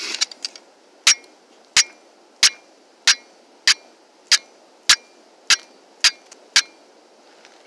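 Steel knife blade struck against a flint rock in a flint-and-steel fire-lighting attempt, throwing sparks onto char cloth. About ten sharp strikes at a steady pace of roughly one and a half a second, after a few small clicks at the start.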